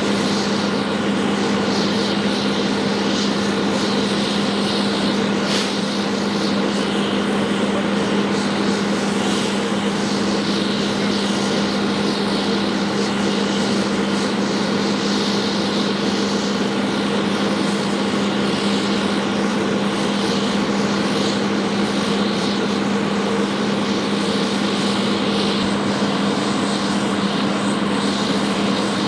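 Steady engine drone with a constant hum, mixed with a broad hiss from the burning truck and the hose stream spraying onto it.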